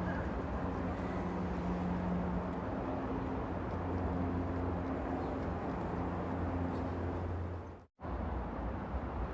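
Train running with a steady rumble and a low hum. About eight seconds in the sound cuts out completely for an instant, then resumes.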